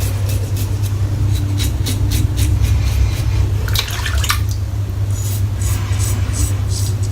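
Razor strokes scraping lathered stubble, a series of short rasps with a brief watery rinse-like burst about four seconds in, over a steady low hum.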